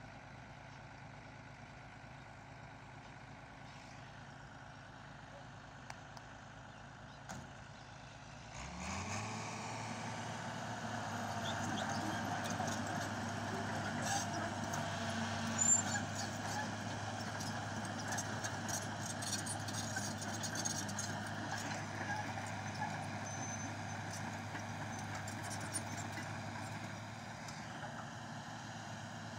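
Hitachi crawler excavator's diesel engine idling, then revving up about a third of the way in as the machine travels on its steel tracks, with clanking and squeaks from the tracks. The engine drops back near the end.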